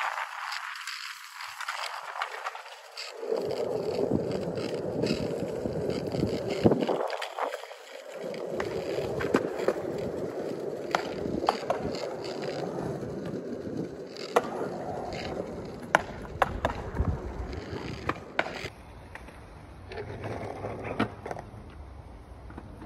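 Skateboard wheels rolling over skatepark concrete: a steady rumble broken by sharp clicks, thinning out briefly near the start and again about a third of the way in.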